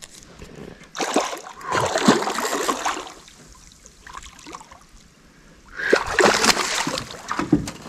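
A big hooked bowfin thrashing and splashing at the water's surface. It comes in two bouts, one about a second in that lasts about two seconds and another near six seconds.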